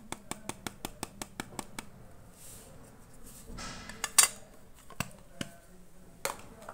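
Small carton of powdered food colouring tapped over a bowl to shake the powder out: a quick run of light taps, about five a second, for the first two seconds. Then a few separate clinks and knocks of things set down on the cutting board, the loudest about four seconds in.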